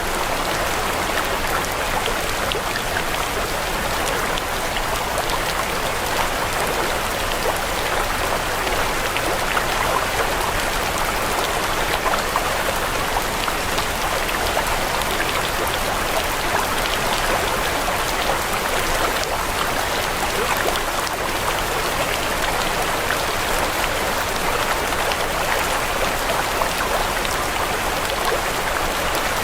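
Steady water sound like rain falling: a constant patter of many fine drops that does not change.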